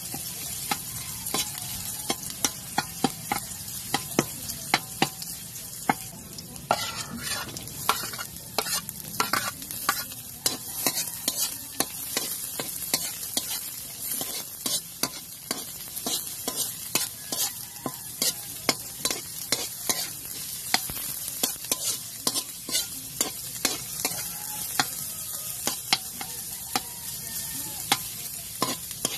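Chopped garlic and onion sizzling in hot oil in a metal wok, with a metal spoon stirring and scraping, clicking against the pan again and again.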